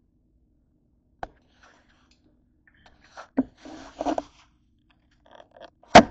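Handling noises on a kitchen counter: a single click about a second in, a knock followed by a short scraping rustle around the middle, and a sharp knock near the end, the loudest of them.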